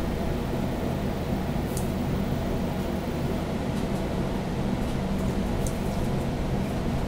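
A steady low mechanical hum, like a room air conditioner or fan, with a couple of faint light ticks.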